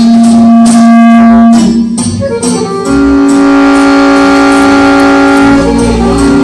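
Chromatic button accordion playing a slow improvisation: a held note, a quick run of short notes, then a long sustained chord of about three seconds, with the melody moving on again near the end.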